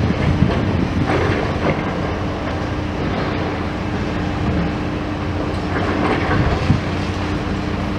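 High-reach demolition excavator at work: its engine and hydraulics run steadily under a constant hum while the crusher jaws break up the building, with rattling and crunching of broken concrete and debris that swells about a second in and again around six seconds in.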